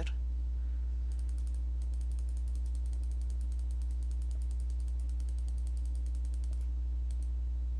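Computer mouse scroll wheel ticking in a fast, even run for several seconds, over a steady low electrical hum.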